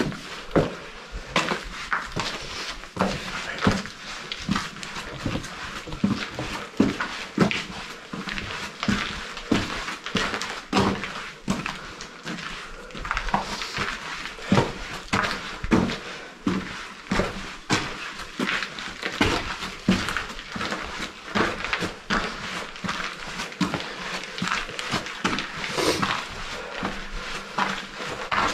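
Footsteps crunching on loose gravel, stones and dead leaves at a steady walking pace, about one to two steps a second, echoing off the bare concrete walls of a bunker corridor.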